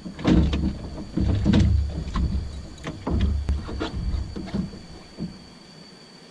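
Knocks and clunks on an aluminum boat's hull as a person shifts about and handles gear, with a deep rumble under the louder knocks. The knocks die away about five seconds in, leaving a faint steady high tone.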